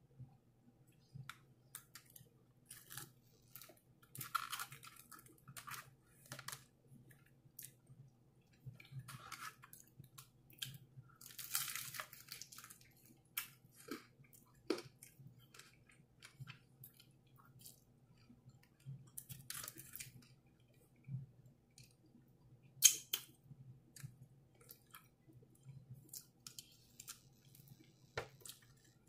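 A person eating fried chicken and sides close to the microphone: irregular chewing and biting sounds, with a single sharp click about two-thirds of the way through.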